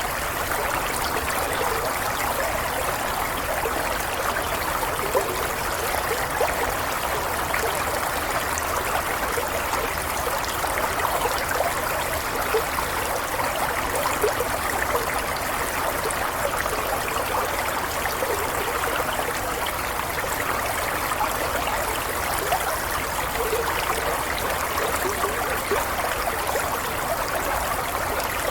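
Running water babbling and trickling steadily, with a constant bubbling splash and no pauses.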